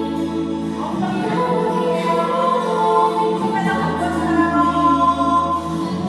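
Music with singing: a sung melody of long held notes over a steady low accompaniment.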